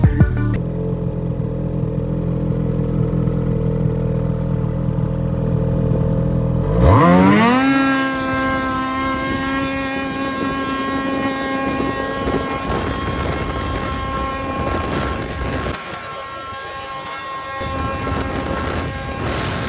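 2022 Ski-Doo MXZ X 850 E-TEC snowmobile's Rotax 850 E-TEC two-stroke twin with an MBRP Race Can exhaust, idling with a steady low note. About seven seconds in the throttle is opened and the revs climb sharply to a high steady pitch as the sled accelerates. Later the sound grows rougher and less even, dipping briefly near the end.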